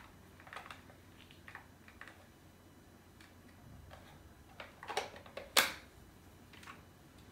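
Scattered light clicks and taps of a plastic LOL Surprise toy capsule being handled and turned in the hands, with a sharper click about five and a half seconds in.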